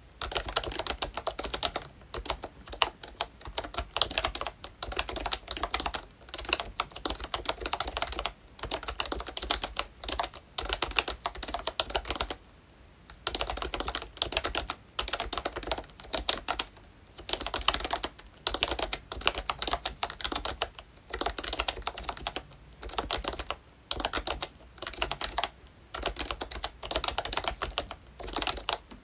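Typing on a ROYCHE Mickey Mouse retro membrane keyboard with round typewriter-style keycaps: quick runs of key clicks broken by short pauses, with a longer pause about twelve seconds in.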